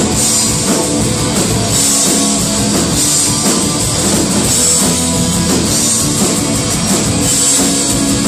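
Rock band playing live: electric and acoustic guitars over a drum kit in an instrumental stretch, after the singer's last sung word ends just at the start.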